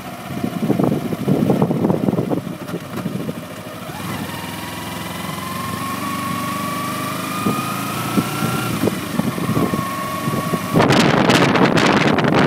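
Kawasaki Ninja 250R's parallel-twin engine running under way, with wind buffeting the microphone; for several seconds its pitch rises steadily as the bike accelerates. Near the end a loud rush of wind noise comes in suddenly and covers the engine.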